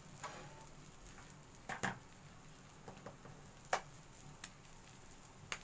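Faint kitchen sounds around a paratha cooking on a dry iron tawa: a low steady hiss with a handful of soft clicks and knocks. The loudest knocks come about two seconds and nearly four seconds in.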